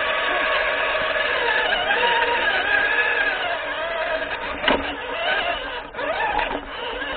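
Onboard sound of an HPI Venture radio-controlled crawler's electric motor and geartrain whining, the pitch rising and falling with the throttle as it climbs over rocks. A sharp knock comes about two-thirds of the way through.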